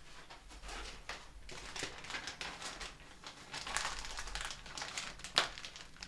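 A Milk-Bone dog biscuit being handled by hand: light crinkling and rustling with scattered small clicks, and one sharper snap about five seconds in.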